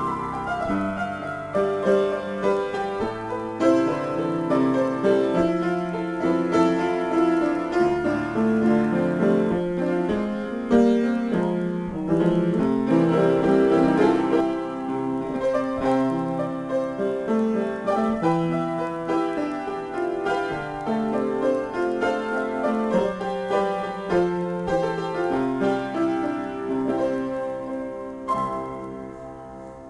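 Upright piano played solo in a free improvisation, a continuous flow of chords and running notes. The playing dies away on a final held chord near the end.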